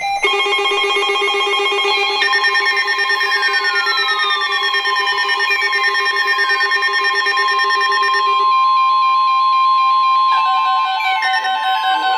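Electronic alert tones: several steady beeping tones pulsing about five times a second, with repeated falling whistles and a long steady high tone running through the middle. This is the attention signal of an incoming weather-radio emergency alert.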